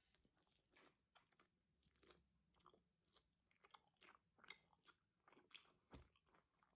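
Faint chewing of food, a run of small crunches a few each second.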